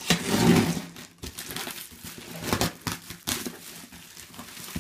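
Plastic mailing bag crinkling as a knife cuts at its packing tape and hands pull at the plastic: a string of short crackling rustles, loudest in the first second.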